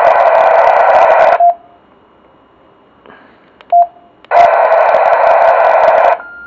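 Yaesu FTM-350 dual-band radio's speaker giving two bursts of loud, harsh noise, the first stopping about a second and a half in and the second about two seconds long. Between them come short single key beeps as its menu buttons are pressed, and a quieter higher beep near the end.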